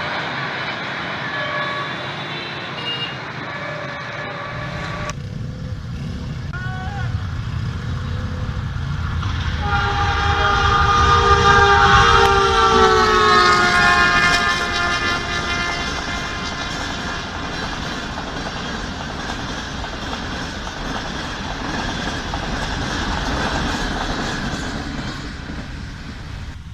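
Diesel-electric locomotive passing at speed with a train: a low rumble of engine and wheels, and a multi-tone horn blown for about five seconds midway. The horn's pitch dips slightly as the locomotive goes by.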